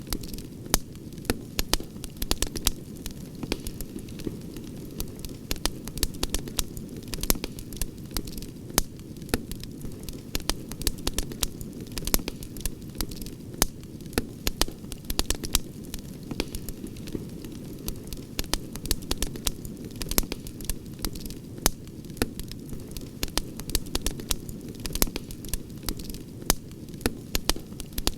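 Outdoor wood campfire crackling: frequent irregular sharp pops and snaps over the steady low noise of the burning flames.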